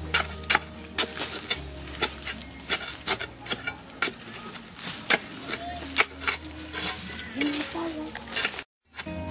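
Metal spade blade repeatedly striking and scraping into hard, dry soil, sharp irregular chunks about two to three a second, as a hole is dug out. The sound cuts out briefly near the end.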